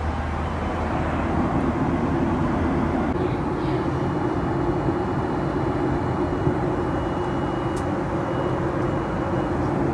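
Steady airliner cabin noise in cruise: the even rush of the jet engines and airflow around the fuselage. A faint, thin, high steady tone joins about four seconds in.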